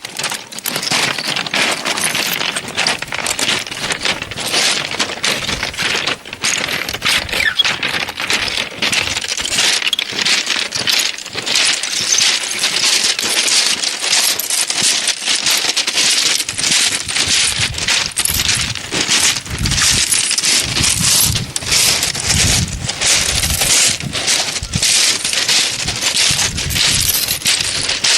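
Sea waves washing over a shingle beach, the pebbles rattling and clinking together in a dense, continuous clatter as the water surges up and draws back. A deeper surf rumble joins in about two-thirds of the way through.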